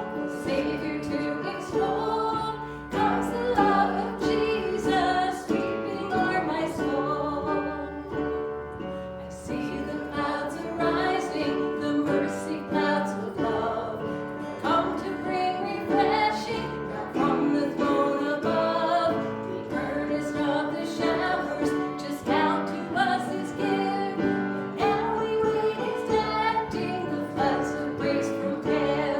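Church worship music: a woman singing a song with guitar and other instruments accompanying.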